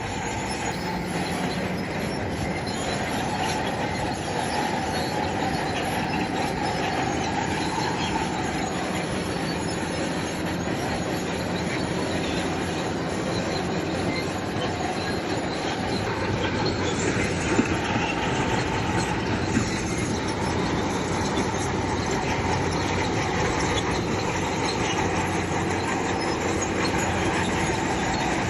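Crawler bulldozer working, its engine running steadily under the metallic clanking and squealing of its steel tracks, with a couple of sharper knocks a little past halfway.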